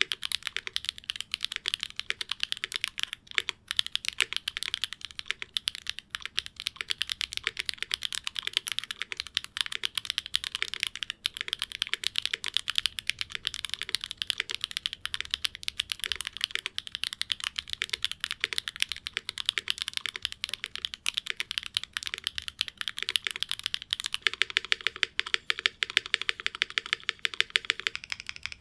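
Fast, continuous typing on a QK75N mechanical keyboard with stock SWK Jieum V2 clacky switches, a carbon-fibre plate with plate foam, and GMK keycaps: a dense stream of sharp clacks. Near the end the presses move to the larger modifier keys, which bring a lower note into the clacks.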